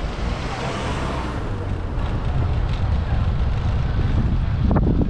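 Road traffic noise with wind buffeting the microphone: a steady low rumble under a hiss, swelling briefly near the end.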